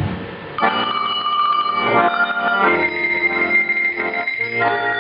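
Tuned cow bells ringing out a tune with an accordion playing along; the music comes in sharply about half a second in and moves to new notes every second or two.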